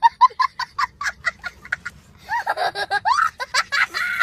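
A young boy laughing hysterically: quick high cackles about five a second, then from about two seconds in, longer squealing whoops that rise and fall.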